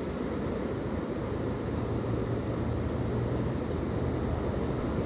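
Steady rushing of river water, with a low rumble that grows stronger about a second in.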